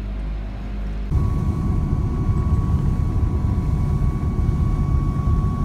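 A pilot boat's engines hum steadily at idle. About a second in, the sound switches abruptly to the boat running fast across open water: a loud, rough engine rumble and the rush of its wake, with a steady high whine over it.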